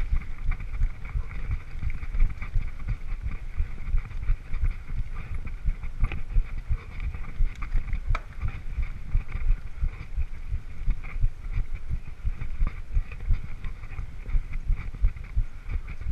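Mountain bike riding over a bumpy forest dirt trail, heard through a rider-mounted action camera: a dense run of irregular low thumps and rattles from the jolts, with steady hiss over it.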